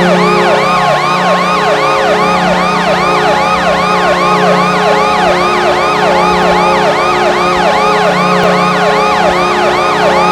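Hockey arena goal horn blowing a steady chord, with a siren over it whose pitch sweeps down again and again, about two and a half times a second.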